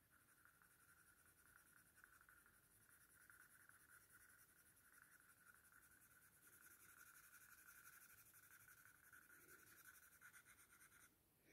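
Faint scratching of a graphite pencil on paper in quick, steady shading strokes, stopping just before the end.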